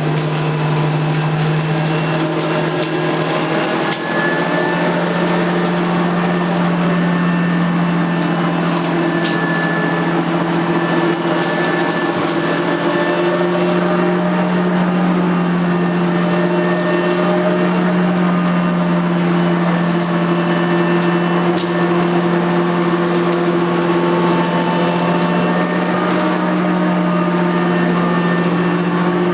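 Nilco 271 commercial upright vacuum cleaner with an eight-brush agitator running while vacuuming up spilled dirt: a loud, steady motor hum whose pitch shifts slightly now and then, with many small ticks of debris being picked up.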